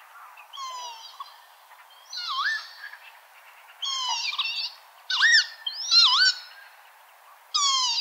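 Northern lapwing calling: about six short slurred 'peewit' calls one to two seconds apart, some falling in pitch and others dipping then rising.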